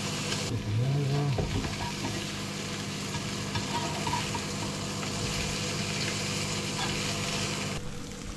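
Whiting fillets, spring onion and garlic sizzling in butter in a non-stick frying pan, a steady hiss, with a knife and fork pushing the food around the pan.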